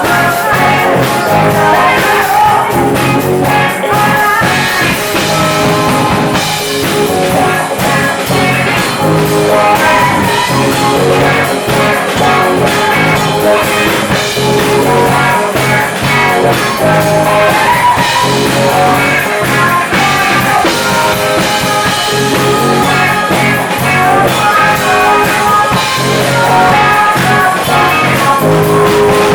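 Live band playing a rock and funk song with electric guitar, drum kit and singing.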